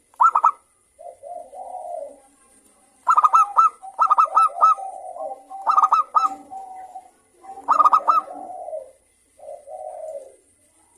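Zebra dove (perkutut) singing. Several times it gives a quick run of sharp, high notes that flows into a lower, rolling coo.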